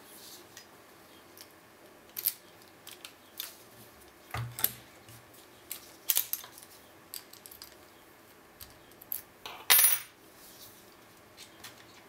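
Master Lock ProSeries 6127 padlock being worked with its key: scattered sharp metallic clicks and clacks as the key turns and the shackle is opened and moved. The loudest is a ringing metallic clack near the end.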